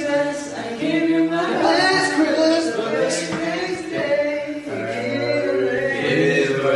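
Young men singing together unaccompanied, with long held notes that glide between pitches.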